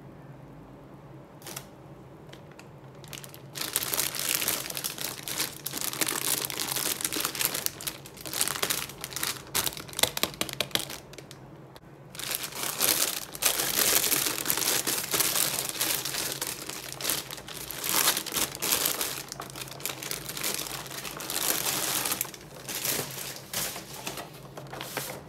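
Clear plastic packaging, a thin plastic bag and a blister pack, crinkling and crackling as hands handle it and pull the pack out. The crinkling starts a few seconds in, pauses briefly about halfway, then comes back and tapers off near the end.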